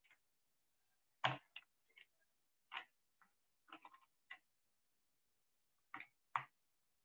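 Faint, irregular clicks and taps, about ten short ones scattered across a few seconds, with the loudest near the start and near the end.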